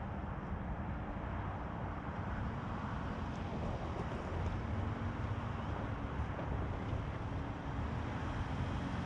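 The 2022 Chevy Colorado ZR2's 3.6-litre V6 engine running at low, steady revs over a steady low rumble.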